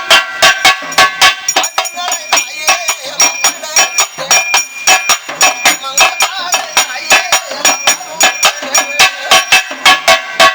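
Pambai drums played with sticks in quick, steady strokes, about four a second, with bright metallic ringing over the beat.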